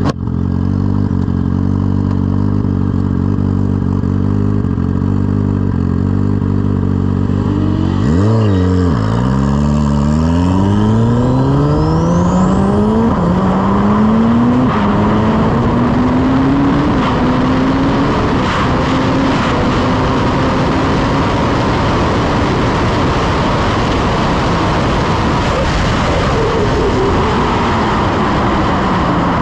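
Turbocharged Suzuki Hayabusa 1300cc inline-four drag bike, heard from on board. It holds steady revs at the line, then launches about eight seconds in and pulls hard through a string of upshifts about every two seconds, with wind rush building. Near the end the engine note falls as the throttle comes off.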